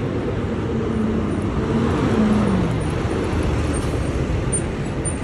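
Diesel box truck passing at close range, its engine note falling about two seconds in, over steady city traffic noise.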